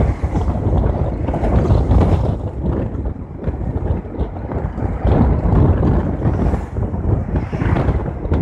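Wind buffeting the microphone in uneven gusts over the low rumble of a moving vehicle's engine and tyres at road speed, heard from inside the vehicle.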